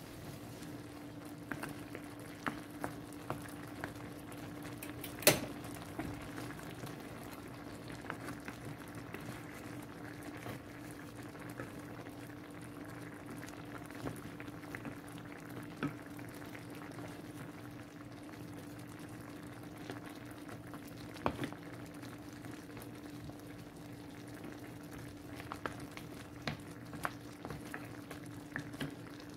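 Creamy coconut sauce with mussels simmering and bubbling in a skillet, with scattered small pops and clicks and a steady hum underneath. Two sharper clicks stand out, about five seconds in and again around twenty-one seconds.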